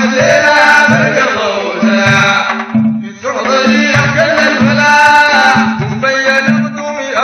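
Sudanese Sufi madeeh: men's voices chanting a devotional hymn over a steady beat of large hand-held frame drums (tar), a little under two strokes a second, with a short break about three seconds in.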